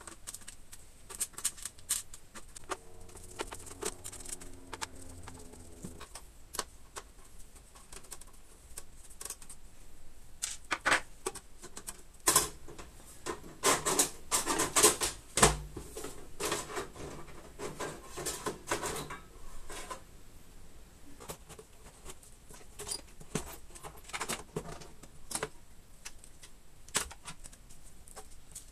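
Clicks, taps and metallic clatter of tools and parts being handled on an aluminium Power Mac G5 case during disassembly. A busy run of knocks comes about halfway through, including one heavier thump.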